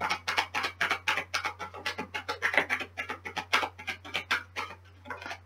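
A deck of oracle cards being shuffled by hand, the cards slapping in quick succession at about five a second, growing quieter near the end.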